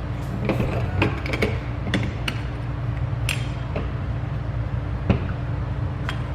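Scattered clicks and knocks of a steering-wheel quick-release hub, its bolts and an Allen wrench being handled and fitted, over a steady low hum. The sharpest knock comes about five seconds in.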